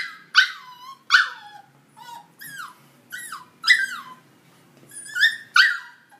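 A mixed-breed puppy whining in a string of short, high cries, each falling in pitch, about ten in all with brief gaps between them.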